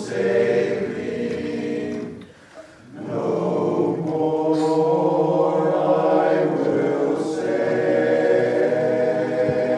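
Men's barbershop chorus singing a cappella in close harmony, holding sustained chords. The sound drops away briefly about two seconds in, then the chorus comes back in.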